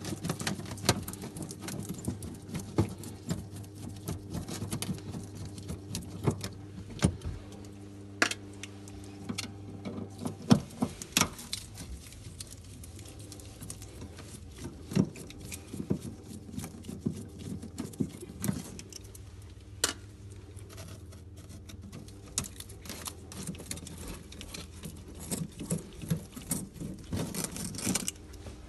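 Scattered clicks, taps and light rattles of tools and parts being handled, irregular and of varying loudness, over a steady low hum.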